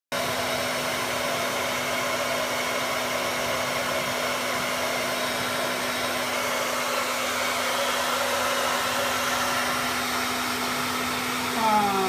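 Hair dryer blowing steadily on a dog's wet fur: an even rush of air over a constant low hum.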